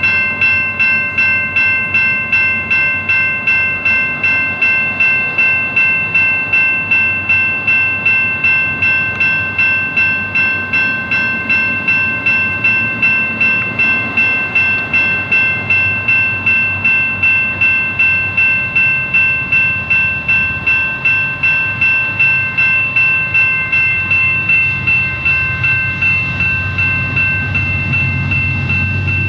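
Railway crossing bell ringing steadily, about two and a half strikes a second. Over the last few seconds the low rumble of an approaching diesel freight train grows beneath it.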